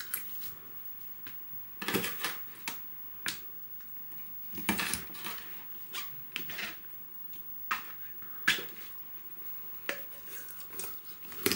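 Forged Kh12MF steel knife cutting up a raw whole chicken on a plastic cutting board: a dozen or so short, separate slicing and crunching sounds as the blade goes through skin and the wing and leg joints, irregularly spaced, the strongest about five seconds in and again near eight and a half seconds.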